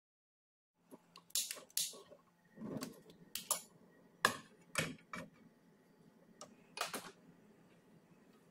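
Sharp clicks and short clattering knocks, about nine spread over several seconds, from a frying pan being set down and handled on a stovetop, starting about a second in over a low steady hum.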